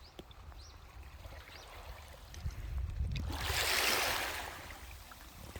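Seawater washing onto the shore: a hiss that swells about three seconds in and fades away, over a steady low rumble of wind on the microphone.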